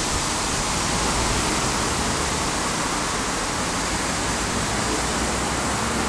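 Steady rushing noise of the Airbus A350-900's Rolls-Royce Trent XWB jet engines as the airliner rolls past, even and unbroken.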